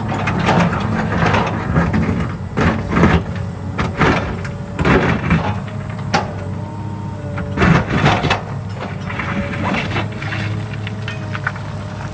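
A diesel excavator's engine running steadily, with repeated loud scraping and clattering, the loudest in the first half and again about eight seconds in.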